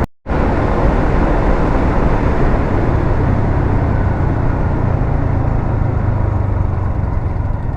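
Steady vehicle noise while travelling: a low engine drone under a dense rush of road and wind noise, after a brief dropout at the very start.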